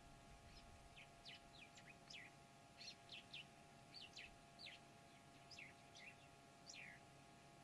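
Faint bird calls: a run of short, high chirps, each sliding quickly downward in pitch, about two a second.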